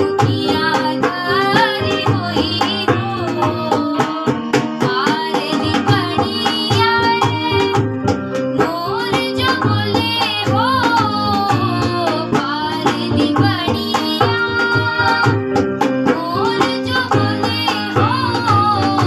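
A girl singing a Himachali folk song, her voice gliding through an ornamented melody over instrumental accompaniment with held notes and a steady drum beat.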